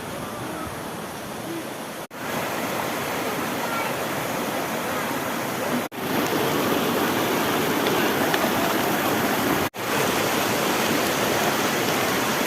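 Waterfall water falling and rushing with a steady, even noise, broken by three brief gaps about two, six and ten seconds in.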